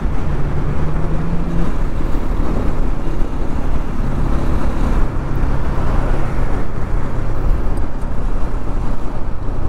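Bajaj Pulsar NS200's single-cylinder engine running at a steady cruise, its note dropping slightly about two seconds in, mixed with road and wind noise of the moving motorcycle.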